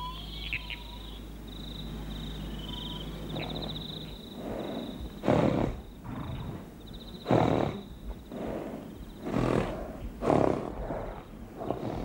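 Horses snoring in their sleep: a slow run of loud, heavy breaths in and out, about one a second. A high steady chirring of night insects sounds before the snores begin.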